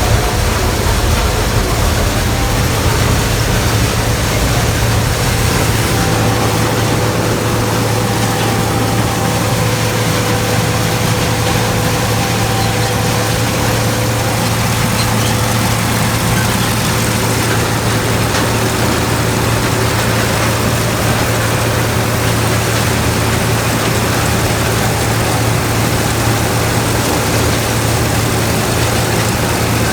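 Heavy farm machinery's diesel engine running steadily, a constant low drone with a thin steady whine over it.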